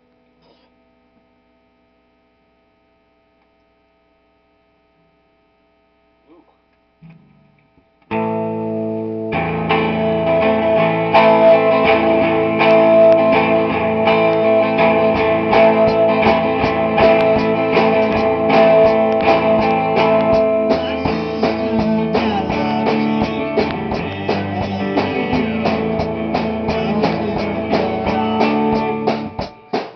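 Faint amplifier hum, then a distorted electric guitar comes in about eight seconds in. A second later a full rock band with drum kit joins, playing loudly, and it breaks off just before the end.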